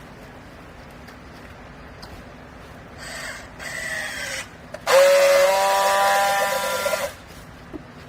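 Cleaning-rag baler machine running in two spells: a shorter noisy burst about three seconds in, then a louder steady whine with hiss lasting about two seconds.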